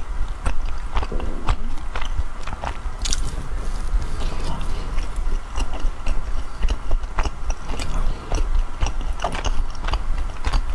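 Close-miked biting and chewing of soft matcha bread, with irregular wet mouth clicks and smacks several times a second.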